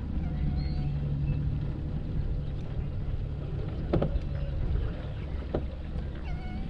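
A boat's motor running with a steady low hum. There is a sharp knock about four seconds in, and a lighter one a second and a half later.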